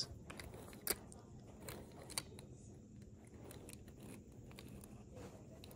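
Faint handling noise from a die-cast toy car being moved by hand on carpet: a few light clicks, the clearest about a second in and again just after two seconds.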